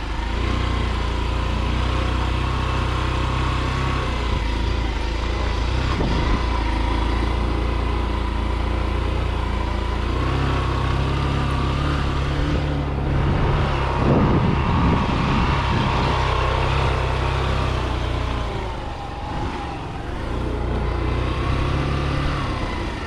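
Motorcycle engine running while riding along a dirt road. Its note steps up about ten seconds in and eases off again near twenty seconds, with a rougher stretch in between.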